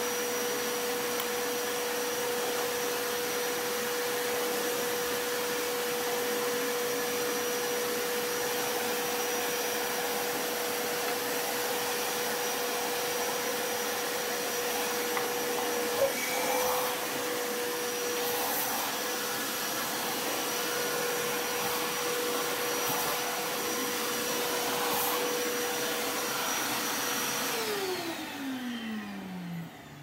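A Kärcher WD1 wet-and-dry vacuum cleaner running steadily with a high whine, with one sharp knock about halfway through. Near the end it is switched off and the motor winds down, its pitch falling.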